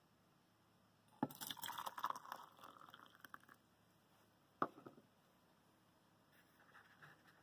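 Water poured into a stainless-steel insulated tumbler, splashing for about two seconds, followed by a single sharp knock.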